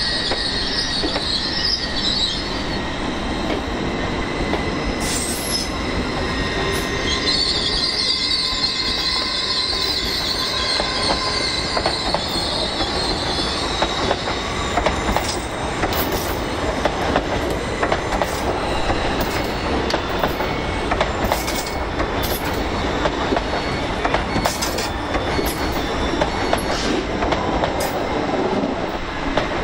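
A train running on the rails with its wheels squealing high-pitched on a curve, at the start and again from about seven to fourteen seconds in. Through the second half the wheels click irregularly over rail joints.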